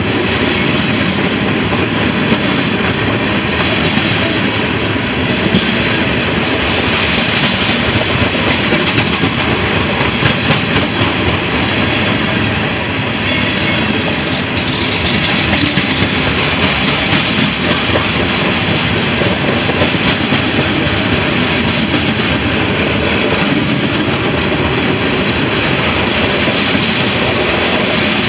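CSX freight train's covered hopper cars rolling past close by: a steady, loud rumble of steel wheels on the rails, with a rapid run of wheel clicks all through.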